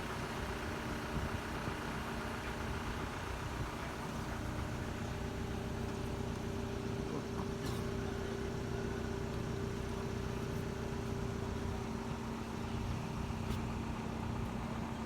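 Engine running steadily at idle, a constant hum with a steady low drone, and a couple of faint ticks.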